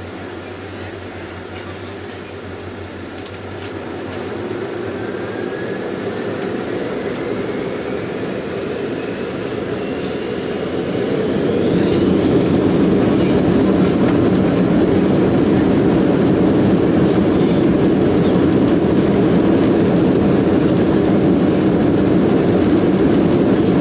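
Boeing 767-300 jet engines, heard from the cabin over the wing, spooling up to takeoff power. A whine rises in pitch over several seconds while the engine noise grows, and it settles into a loud, steady roar about twelve seconds in.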